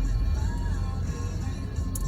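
Music playing from the car radio inside the cabin, over the low rumble of the car.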